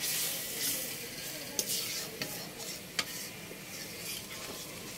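Spice paste sizzling in a metal wok while a metal spatula stirs and scrapes it, with a few sharp scrapes against the pan. The masala is being fried down (kosha) over a wood fire.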